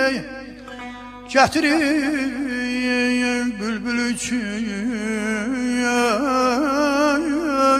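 Azerbaijani mugham music: an ornamented, wavering melodic line over a held low note. It dips in loudness at first, then a new phrase starts sharply about a second and a half in.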